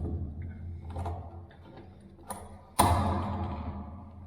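Fire door being worked on while its hinges are bent to fit the jamb: a few light metallic clicks, then a single loud clank just under three seconds in that rings and fades.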